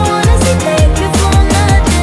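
Background electronic pop music with a steady beat: deep kick drums that drop in pitch, a sustained bass and fast high ticks.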